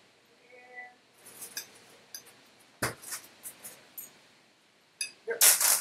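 Metal fork mashing boiled potatoes in a glass mixing bowl: light scrapes and clinks of the fork against the glass, with a sharp knock a little before three seconds and a louder, noisier sound near the end.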